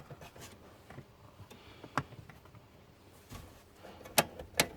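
Scattered light ticks and taps of a tool working at the horseshoe retaining clip on a 2003 Chevy Silverado's shift cable. A sharper click comes about two seconds in, and two more come near the end.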